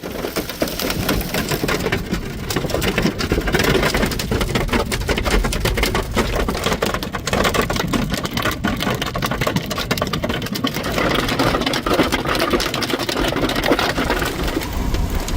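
Hail and rain pelting a vehicle: a dense, continuous clatter of many small impacts over a steady low rumble.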